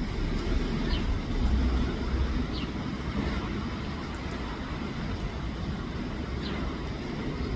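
Steady low rumbling background noise, with three short, high, falling chirps from a bird: about a second in, about two and a half seconds in, and near the end.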